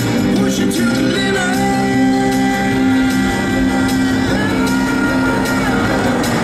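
Music with guitar, playing at a steady, loud level.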